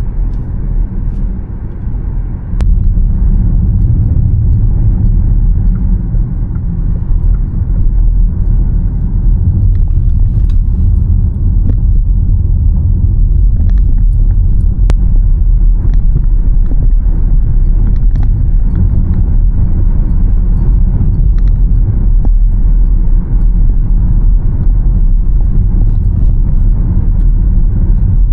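Škoda Elroq electric car on the move: a steady low road and tyre rumble with no engine note, which gets louder about two and a half seconds in.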